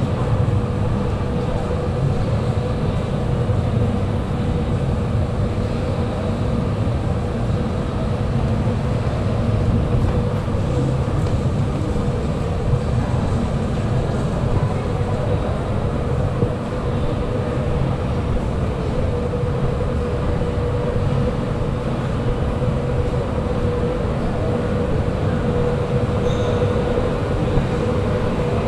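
Steady low mechanical rumble with a constant mid-pitched hum.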